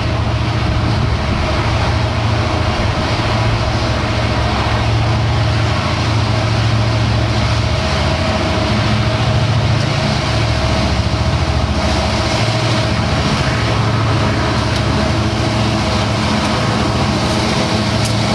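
Diesel-electric locomotives of a loaded coal train running past close by: a steady, loud diesel engine drone over the rumble of the train.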